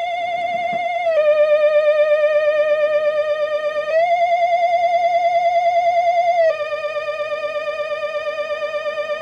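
Spooky looping Halloween sound effect: a single eerie electronic tone with a wide vibrato, like a theremin. It steps between two notes, dropping about a second in, rising about four seconds in and dropping again about six and a half seconds in.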